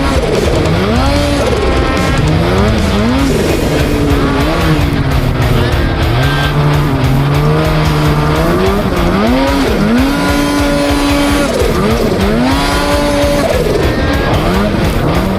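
Snowmobile engine revving up and down over and over, its pitch sweeping up and falling back several times and holding steady for about a second near the middle, over a constant low rumble.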